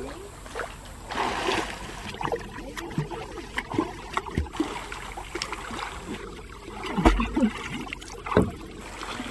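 River water splashing and sloshing in irregular bursts as a swimmer strokes toward the bank and wades out into the shallows.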